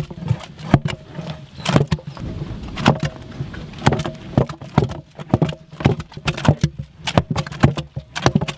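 Utensils knocking and scraping against a large cooking pot in quick, irregular strokes as the haleem is worked, over a steady low hum.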